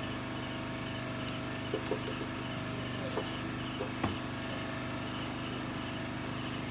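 Night insects such as crickets chirring steadily over a constant low hum, with a few short ticks and clicks. The sharpest click comes about four seconds in.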